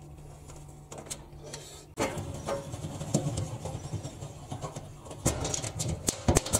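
Hands working on a Harrison lathe's sheet-steel panel and its Allen bolts. It starts as a faint steady hum, then scraping and rattling of metal come in about two seconds in, with several sharp metal clicks near the end.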